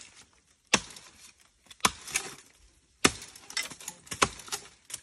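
Sharp cracks and snaps of dry bamboo, about six at irregular intervals, roughly one a second.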